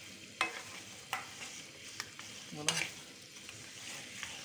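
Raw mutton pieces frying in oil in a wok on high heat, a steady sizzle, with a wooden spatula stirring the meat and scraping against the pan four times, the loudest stroke a little after halfway.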